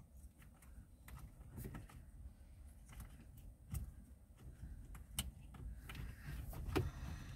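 Faint plastic clicks and taps of a Smart Forfour 453 headlight/indicator stalk being handled and pushed into its steering-column switch housing, with a few sharper clicks in the second half.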